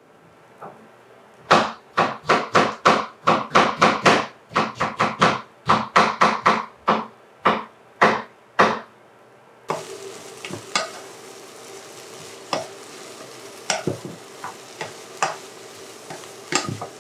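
A knife chopping vegetables on a cutting board, a steady run of strokes about three a second. About ten seconds in this gives way to vegetables sizzling in a pot, with a wooden spatula stirring and scraping and now and then tapping the pot.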